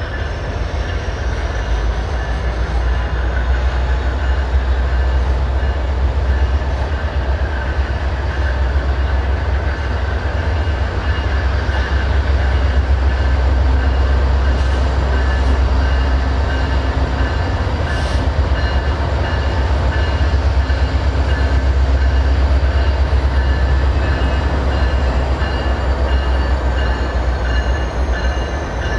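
Diesel freight locomotives approaching at low speed: a heavy, steady engine rumble under a high whine and squeal. The whine rises in pitch at the start and slides down again near the end.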